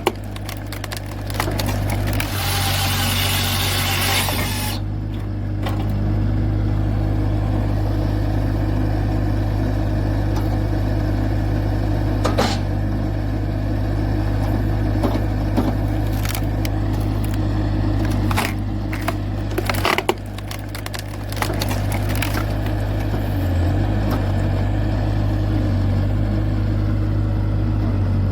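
Carrier machine's engine running steadily while a hydraulic log-processing attachment works: a hiss of a couple of seconds near the start, then scattered knocks and cracks of wood being cut and split.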